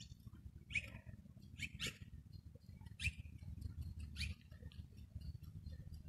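Birds calling: several short, sharp calls about a second apart, each dropping in pitch, over a steady low rumble.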